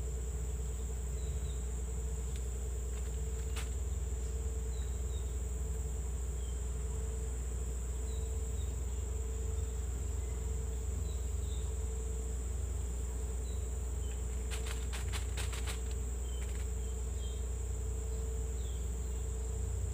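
Steady insect chorus: a continuous high drone and a lower note pulsing on and off, with short high chirps scattered through, over a steady low rumble. A quick run of about seven clicks comes about two thirds of the way in.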